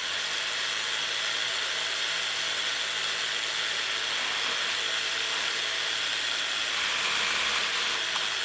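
Two HO-scale Tyco slot cars running flat out on a dual rolling dyno, their small electric motors and gears giving a steady high-pitched whir. The sound changes briefly about seven seconds in as one car is pressed down on the rollers.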